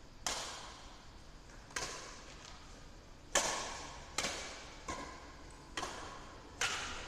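Badminton rackets striking the shuttlecock in a rally: sharp smacks roughly once a second, seven in all, each echoing in a large hard-walled hall.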